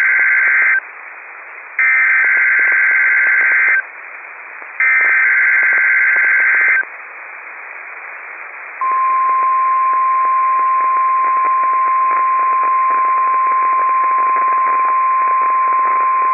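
NOAA Weather Radio Required Weekly Test: three two-second bursts of buzzy SAME (specific area message encoding) data tones, the first already under way, each about a second apart. About two seconds after the last burst, the steady single-pitch weather radio alert tone begins and holds, all over constant radio hiss.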